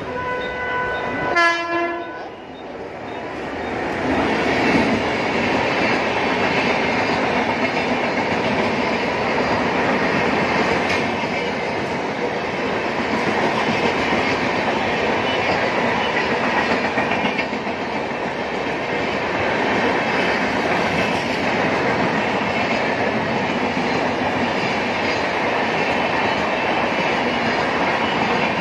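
A train horn sounds for about the first two seconds. Then an express train's LHB coaches pass close by for the rest: a steady loud rush of wheels on rail with a rhythmic clickety-clack over the rail joints.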